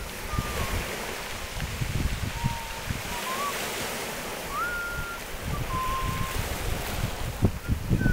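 Small waves breaking and washing up a cobble beach in rough seas, with gusts of wind buffeting the microphone. A faint thin whistling tone shifts between a few pitches above the surf.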